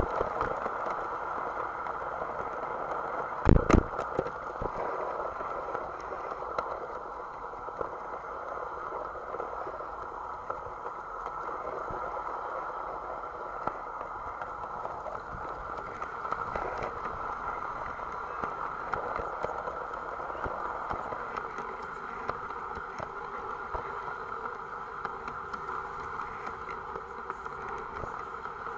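Gauge 1 garden model train running along its track, heard close up from on board: a steady running whirr with scattered clicks as the wheels pass over rail joints, and a sharp double knock about three and a half seconds in.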